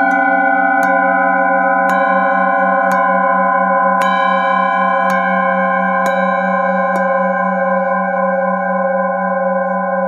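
Hand-held metal singing bowl worked with a wooden striker: a sustained ringing made of several steady tones, the lowest with a slow pulsing waver. A light tick sounds about once a second until about seven seconds in, after which the bowl rings on alone, fading slightly.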